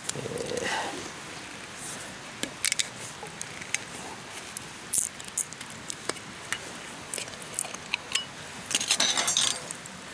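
Wood fire crackling in a small metal fire grill, with scattered sharp pops. A glass whisky bottle is handled with light clinks, and a short rasping burst about nine seconds in as its screw cap is twisted off.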